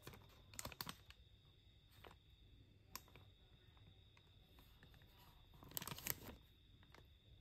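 Faint crinkling and crackling of a clear plastic film wrapper being peeled off a cookie by hand, in short bursts: a few about a second in, one sharp crackle about three seconds in, and the loudest cluster near the end.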